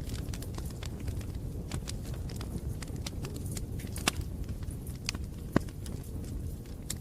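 Wood fire burning, with a steady low rumble of flames and irregular crackles and snaps, a few sharper pops among them.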